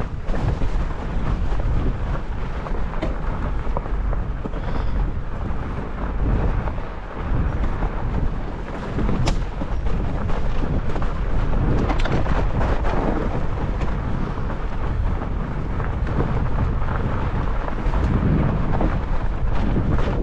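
Wind buffeting the microphone while a fat bike is ridden fast over a snowy trail: a steady heavy rumble from the wind and the fat tyres rolling on snow, with a few sharp clicks and rattles from the bike.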